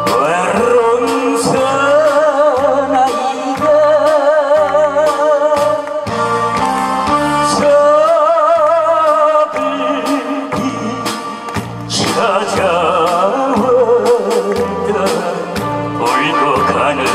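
A man singing a Korean trot song into a microphone with a wide vibrato, over a recorded backing track with a steady bass and beat.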